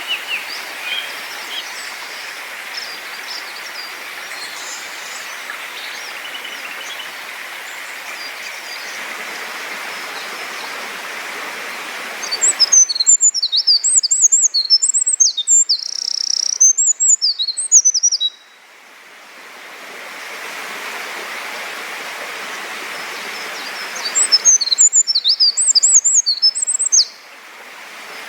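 A small songbird sings two loud bouts of rapid, jumbled high notes: one lasting about five seconds from roughly halfway through, and a shorter one near the end. Between the bouts there is a steady background rush, with faint scattered chirps in the first half.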